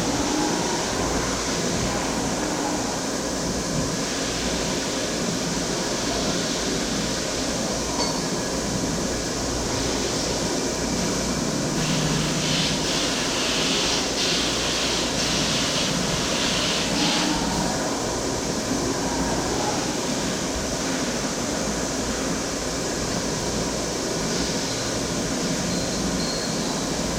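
CNC machine running steadily, with a harsher, hissier stretch of about five seconds in the middle.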